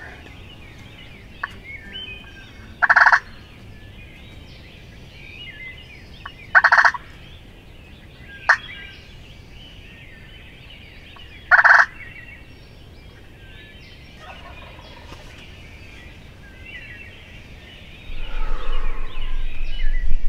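Wild turkey gobbler gobbling three times, a few seconds apart, each gobble short and loud. Underneath is a steady hiss of rain, and a loud, low rushing noise comes in near the end.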